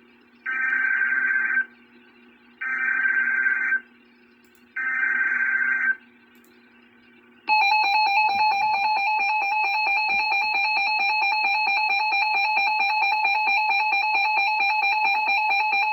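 Emergency Alert System SAME header: three short bursts of data tones, each about a second long, then the steady EAS attention tone starting about seven and a half seconds in. Together these are the digital header and alarm tone that open a new emergency alert.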